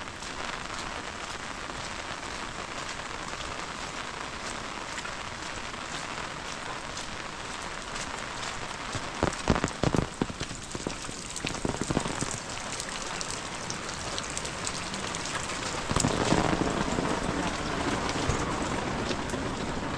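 Steady rain falling, with a few sharper knocks around the middle and a louder stretch of rain near the end.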